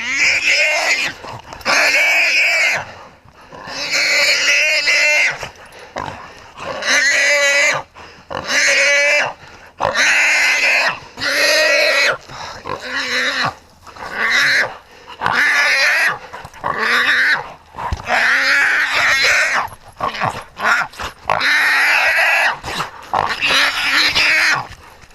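Wild hog squealing loudly over and over, about one squeal a second, as it is held by a catch dog.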